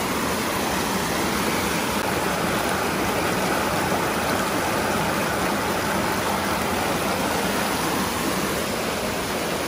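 Mountain stream rushing over rock, a steady, fairly loud rush of flowing water close to the microphone.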